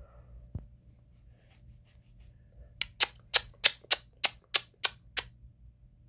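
A quick run of about nine sharp clicks, roughly three a second, following a few fainter ones.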